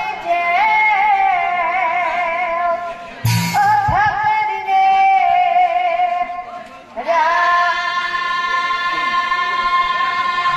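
Assamese nagara naam devotional singing: a woman sings the lead line in long, bending phrases, with one loud hit about three seconds in. About seven seconds in a fuller phrase begins, with the seated group singing along.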